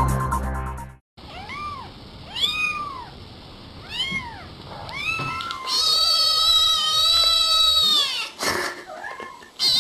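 Domestic cat meowing: four short meows that rise and fall in pitch, then one long drawn-out meow, with another long meow starting near the end. Electronic intro music cuts off about a second in, just before the meows.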